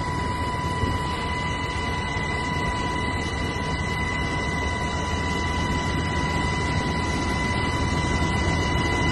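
MH-60S Knighthawk helicopter heard from inside its cabin at the open door: a steady rumble of rotor and engines with a constant high whine over it.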